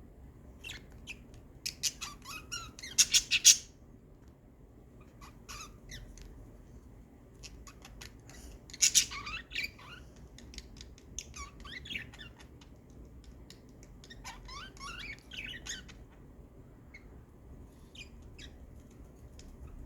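Small pet birds chirping and squawking in short, scattered bursts while mating, the loudest bursts about three seconds in and again about nine seconds in.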